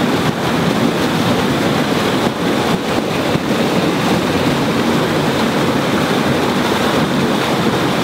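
Waterfall rushing, a loud steady noise of falling water.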